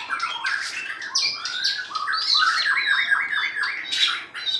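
White-rumped shama singing: a fast, varied run of chirps and whistles, with a quick string of repeated notes in the middle.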